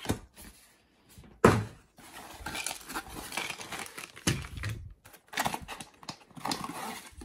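Cardboard and plastic packaging being handled: rustling and crinkling, with a couple of sharp knocks and a run of small clicks as the cardboard insert and plastic parts are moved about.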